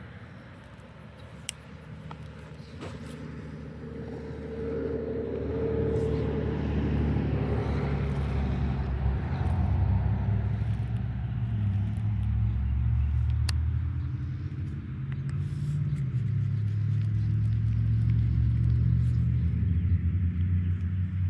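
Low, steady rumble of a motor vehicle's engine, building about four seconds in and then holding steady, with a few sharp ticks over it.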